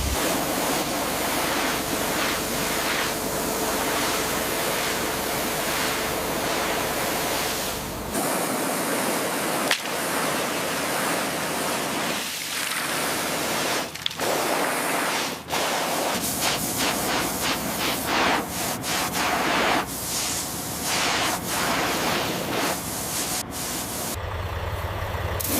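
High-pressure water spray hissing steadily against a surface, its sound changing abruptly a few times.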